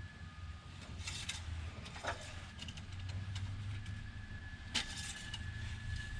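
Light clicks and rubbing of an engine oil dipstick being drawn out, wiped and reseated during an oil-level check after an oil change, over a steady low hum. A short falling squeak sounds about two seconds in.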